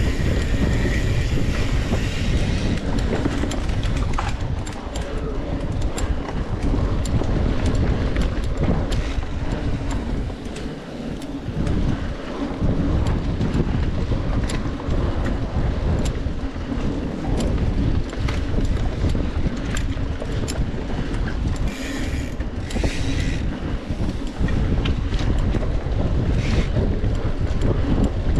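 Wind buffeting the microphone of a camera riding on a mountain bike, with steady clicking and rattling from the bike on rough trail. There are brief higher-pitched buzzes at the start and twice about 22 seconds in.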